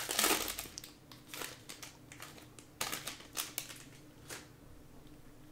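Foil wrapper of a Panini Prizm football card pack crinkling as it is torn open, loudest in the first half second, followed by a few short rustles and clicks as the stack of cards is slid out.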